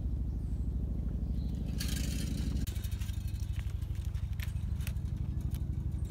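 An engine running at a steady low idle, a rapid low throb that shifts slightly partway through. A brief rustle comes about two seconds in, and a few sharp clicks follow later.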